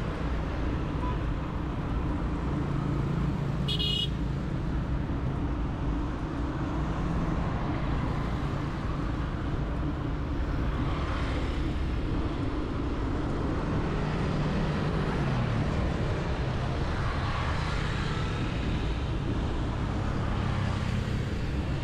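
Road traffic on a city street: a steady rumble of passing cars and motorbikes, with a short horn toot about four seconds in.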